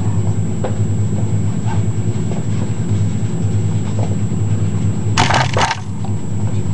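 Model railroad layout running: a steady low engine-like drone with a few faint clicks, broken about five seconds in by a short, loud crackling burst.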